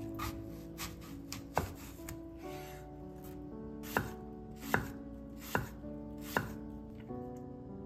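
Kitchen knife chopping apple on a wooden cutting board: a string of sharp knocks on the board, about one a second in the second half, over soft background music.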